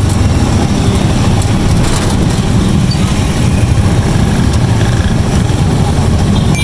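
Street traffic in a busy market lane: motor vehicle engines running with a steady low rumble.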